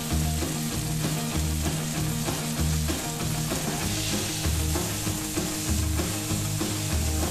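Chicken tenders sizzling in hot oil in a cast-iron skillet, turned with tongs, over background music with a repeating bass line.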